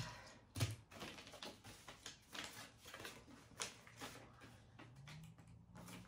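Faint rustling and soft clicks of a paper instruction booklet being handled and its pages turned, with one sharper tap about half a second in.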